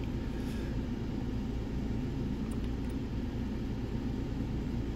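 Steady low rumble of background noise, with a few faint, light ticks from a lock pick working the pins of a dimple-core padlock.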